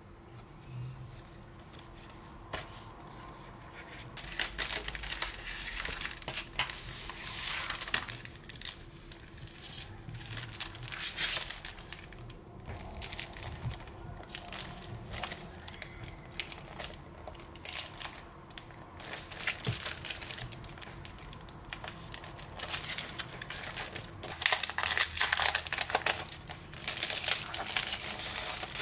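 Crinkling and rustling of a clear cellophane sleeve around a pack of paper die-cuts as it is picked up and handled. The noise comes in irregular crackles, loudest about seven seconds in and again near the end.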